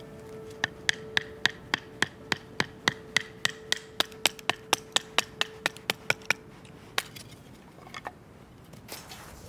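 A quick, even series of about twenty sharp strikes, three to four a second, for about six seconds, then one more strike and a few lighter knocks near the end.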